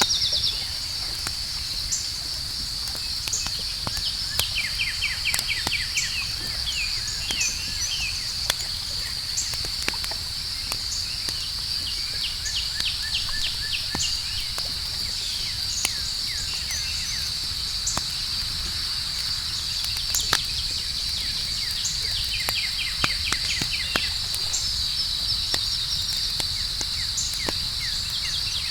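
Campfire crackling with scattered sharp pops over a low rumble, set against a steady high insect trill. Repeated short chirping trills come and go.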